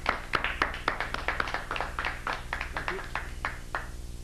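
Small audience applauding with scattered hand claps, thinning out and stopping near the end.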